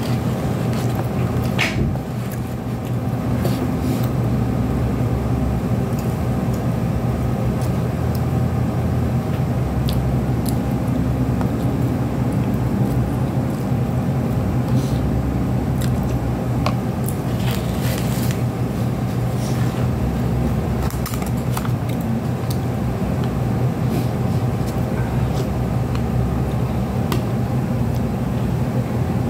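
Steady low mechanical hum, like a kitchen motor or fan running, with scattered light clicks and taps from handling food and eating from a noodle cup with a spoon.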